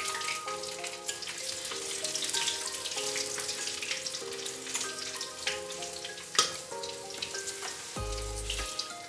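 Whole spices (panch phoron, bay leaves, green chili and dry red chilies) sizzling and crackling in hot mustard oil in a kadhai, stirred with a spatula.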